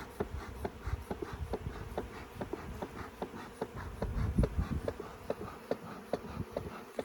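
Honeybees around an open hive: a faint steady buzz with many small sharp clicks, several a second, and a low rumble about four seconds in.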